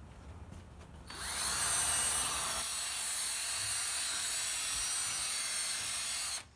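Power drill spinning a 3M Trizact 3000-grit sanding pad to wet-sand a headlight lens. The drill spins up with a rising whine about a second in, runs steadily, then stops just before the end.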